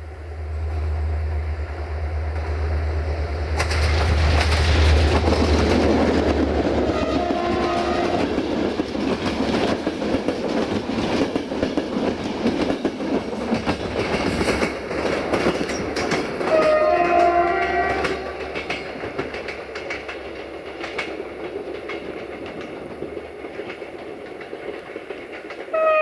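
Diesel locomotive hauling a passenger train past at close range: the engine drones, then the wheels clatter over the rail joints as the coaches go by. The locomotive's multi-tone air horn sounds in short blasts about 7 seconds in, again about 17 seconds in, and once more at the very end.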